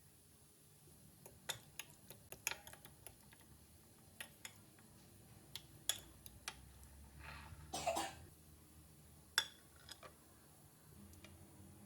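A scattered series of light clicks and knocks, like objects being handled and set down, with a short rushing or breathy noise about eight seconds in.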